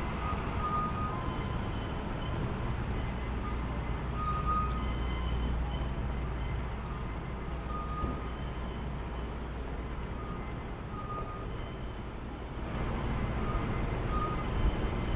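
Night-time city ambience: a steady low rumble of distant traffic and machinery, with faint short high-pitched beeps every second or two, growing a little louder about two-thirds of the way through.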